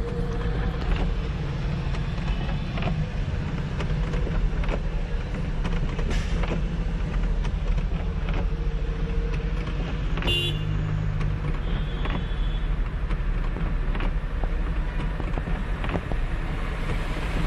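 Steady engine and road rumble of a car heard from inside its cabin as it drives along a flooded road, with a brief sharp sound about ten seconds in.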